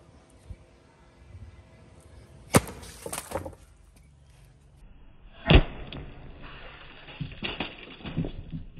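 A war hammer smashing a watermelon: a sharp, wet-sounding smack as the melon bursts about two and a half seconds in, a second loud smack about three seconds later, then several lighter knocks.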